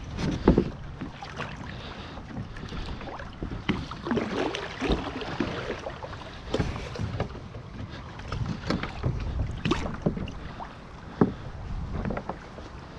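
Water sloshing and splashing around a person's legs as they climb out of a plastic Hobie kayak and wade beside it, with hollow knocks of gear and a stake-out pole against the hull; the sharpest thumps come about half a second in and around eleven seconds. Wind buffets the microphone underneath.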